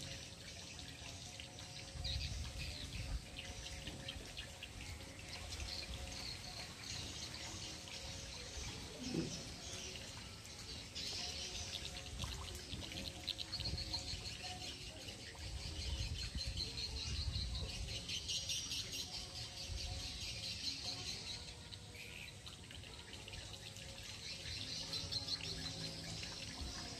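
Outdoor ambience of birds chirping, with uneven bouts of low rumble underneath.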